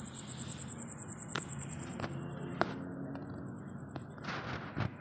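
A cricket trilling in a fast, high pulse, over a low steady hum. Several sharp clicks and a short rustle near the end cut in.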